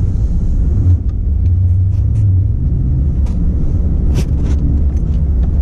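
Plow truck's engine running, a steady low rumble heard from inside the cab, with a few faint ticks.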